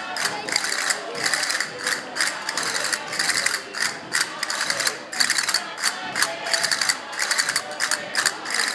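Dense rattling clicks in short rapid rolls, one after another through the whole stretch.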